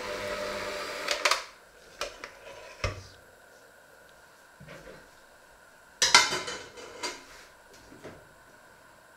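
Electric hand mixer running with its beaters in a steel bowl of dough, switched off about a second in. Then a few knocks as it is set down, and a loud clatter of dishes or pans about six seconds in.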